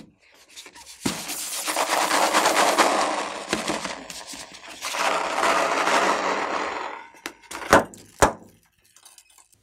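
Inflated latex balloons squeezed and rubbed in the hands, a dense crackling rustle in two long swells. Near the end, two sharp snaps as scissors cut into the orange balloon.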